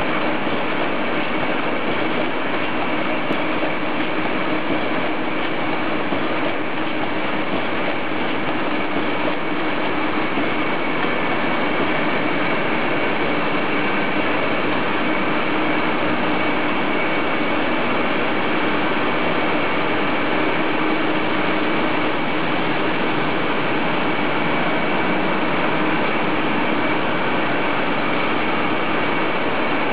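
Rebuilt Winkler+Dunnebier 624 handkerchief line with Senning 525 and 507 packing machines running: a steady, dense mechanical clatter with a low hum and a high steady whine.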